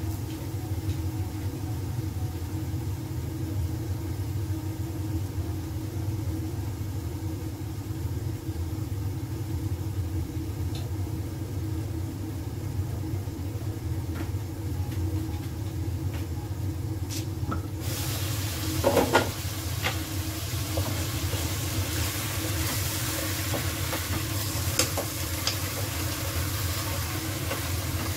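A steady low hum, then about two-thirds of the way through a pot lid is lifted with a clatter and chicken pieces can be heard sizzling in hot oil, with a wooden spoon stirring them.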